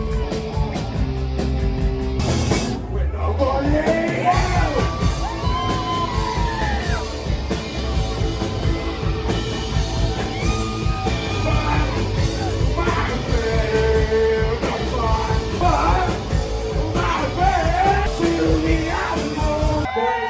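Music with a sung vocal over a steady driving beat, the singing coming in about three seconds in.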